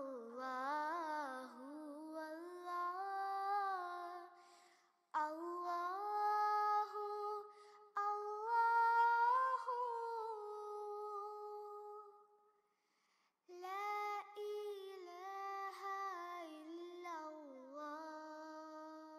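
A high solo voice singing a slow melody unaccompanied, in long held notes that glide between pitches, in phrases broken by short pauses.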